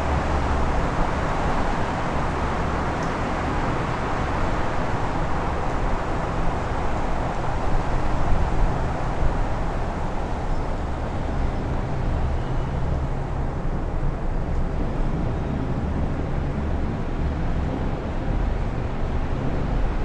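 Strong wind rushing in gusts, with a low, uneven buffeting rumble on the microphones. The gust eases off about halfway through.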